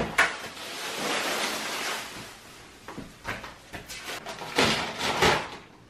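Plastic masking sheeting and masking tape crinkling and tearing as they are pulled off: a rustle over the first two seconds, then scattered crackles and a louder ripping noise near the end.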